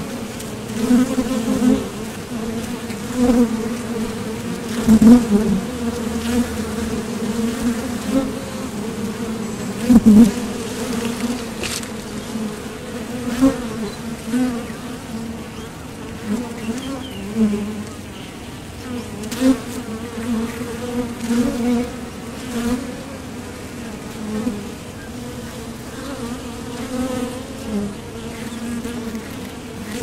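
Honeybees buzzing around mason-jar honey supers: a continuous wavering hum of many bees, swelling briefly again and again as single bees fly close past.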